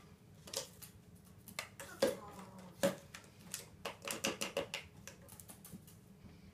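Parrot's beak tapping and knocking the plastic bottles on a kitchen bench: a string of irregular clicks and clatters, quickening into a run of taps about four seconds in, mixed with a few short mutters from the bird.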